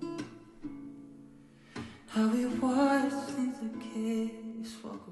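Background pop song: acoustic guitar strumming with a singing voice.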